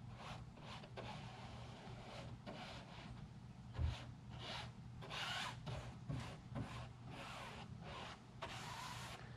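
Paintbrush stroking wet adhesive onto the fabric covering of an aircraft wing: a run of short, scratchy swishes. There is a single low thump about four seconds in, over a steady low hum.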